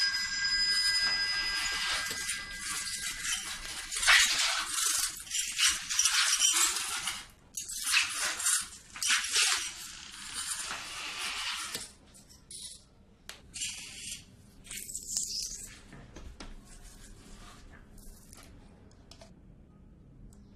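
Shards of broken fish-tank glass scraping and clinking on a wet tiled floor as hands sweep and gather them. The scraping is busy for about the first half, then dies down to scattered faint clicks.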